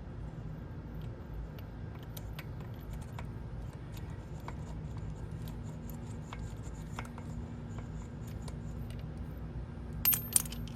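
Hand tools being handled: faint scattered clicks and scrapes over a steady low hum, with a few sharper clicks near the end.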